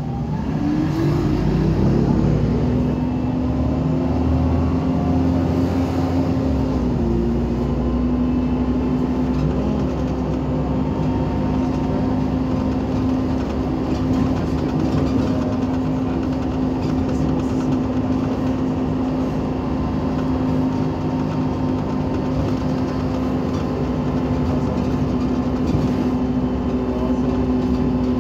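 Irisbus Citelis 18 articulated bus's Iveco Cursor 8 CNG straight-six engine and Voith automatic gearbox running. Its pitch rises over the first couple of seconds, then holds steady, with a small dip about seven seconds in.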